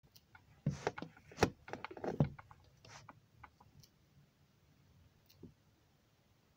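Plastic toys being handled: a doll and small toy accessories knocking and clicking against a plastic dollhouse shelf. There is a quick cluster of clicks and knocks about a second in, then a few scattered clicks.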